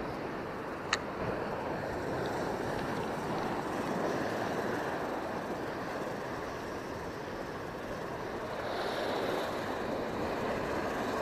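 Sea surf breaking and washing over rocks, a steady rushing noise, with wind buffeting the microphone. A single sharp click about a second in.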